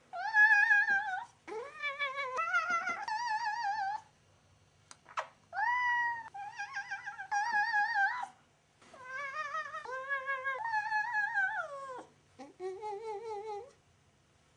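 Cat yodeling: a cat yowling in about four long drawn-out bouts, its pitch wavering rapidly and jumping between a lower and a higher note.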